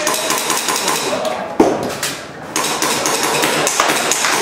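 Airsoft pistol firing a run of sharp shots in quick, irregular succession, with the loudest crack about one and a half seconds in and a short lull just after two seconds, under voices in the background.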